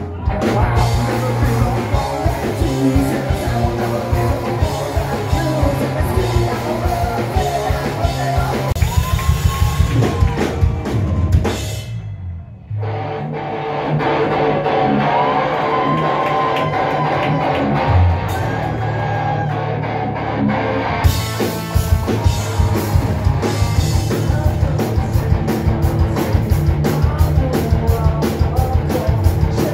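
Live rock band playing: a drum kit and electric guitars at full volume. The music changes abruptly, with a brief dip about twelve seconds in and another switch about twenty-one seconds in.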